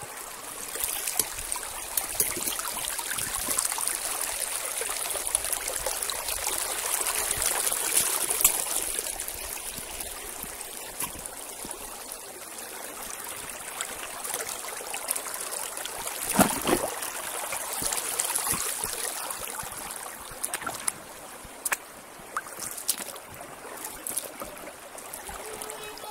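Shallow mountain stream running over rocks, a steady trickling and splashing, with one brief louder splash about two-thirds of the way through.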